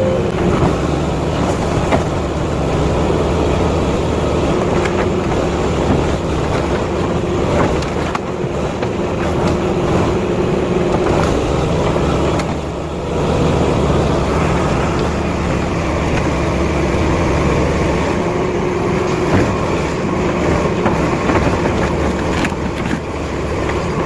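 Heavy vehicle engine running, a dense steady rumble, with scattered knocks and clanks and a brief dip in level about halfway through.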